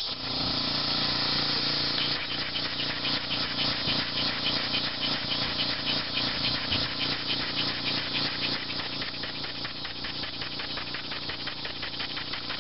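Homemade single-cylinder steam engine running on compressed air, its exhaust puffing in a fast even beat of roughly five strokes a second that becomes distinct about two seconds in. Behind it is the loud steady drone of cicadas.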